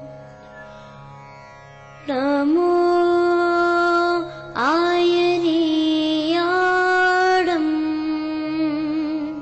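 Slow Jain devotional chant sung over music. After about two seconds of soft accompaniment, a voice comes in holding long, drawn-out notes, each starting with an upward slide, with a short break for breath about halfway through.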